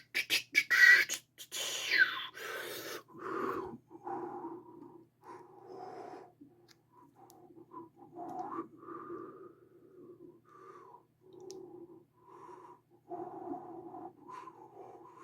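A few sharp clicks and taps of small tools being handled, then a person breathing in short, wheezy breaths while working close to the microphone.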